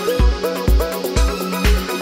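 Electronic dance music: a steady kick drum about twice a second under a synth melody.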